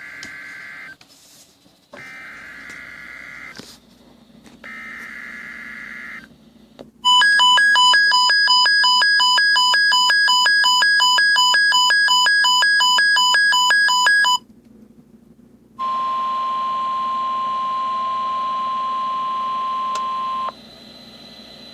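NOAA Weather Radio alert for a Severe Thunderstorm Watch: three short bursts of warbling SAME digital header data, then the Capello weather radio's own alarm beeping rapidly and very loud at its HIGH alert volume for about seven seconds, then a steady 1050 Hz warning tone for about five seconds.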